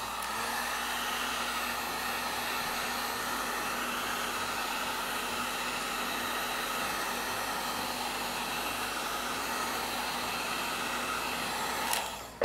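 Heat gun blowing steadily, a rushing hiss with a faint low hum, heating the phone to loosen the battery before it is pried out. It cuts off shortly before the end.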